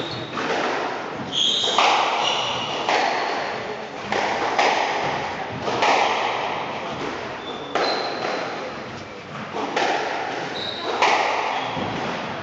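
Squash rally: a racket striking the ball and the ball smacking off the court walls, about one hit every second and a half, each ringing briefly in the enclosed court, with short squeaks of the players' shoes on the wooden floor between hits.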